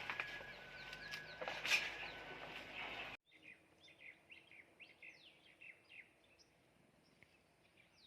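Louder outdoor background noise with scattered clicks for about three seconds, then a sudden cut to quiet, with many birds chirping in short, quick calls.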